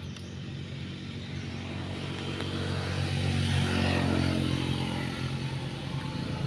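Engine of a passing motor vehicle, a low steady drone that grows louder toward the middle and then fades somewhat.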